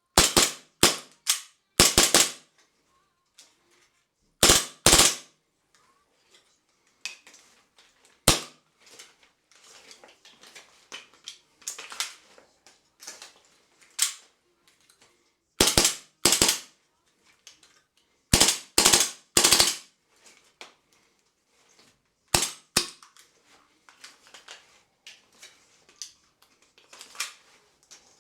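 Sharp plastic clicks and snaps in irregular clusters, with softer handling rattles between: Glock 17 polymer magazines being pushed into and pulled out of a 3D-printed magazine pouch.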